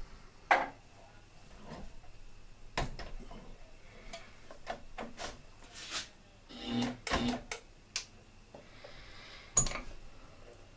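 Scattered clicks and knocks of metal tools and parts being handled on a mini lathe, irregular, with two sharp louder knocks, one about half a second in and one near the end.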